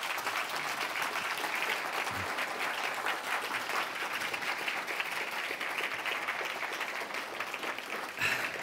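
Audience applauding: many hands clapping in a steady, dense patter that holds for several seconds.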